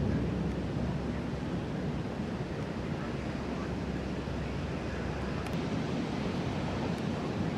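Steady rushing storm wind with no thunderclap, heaviest in the low range.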